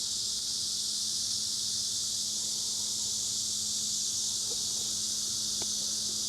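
Steady, unbroken chorus of insects chirring in the background, high-pitched and unvarying, with a faint steady low hum beneath it.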